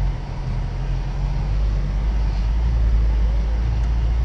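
Steady low rumble of a 4x4's engine and tyres on snow, heard from inside the cab while driving, swelling a little louder over the first couple of seconds.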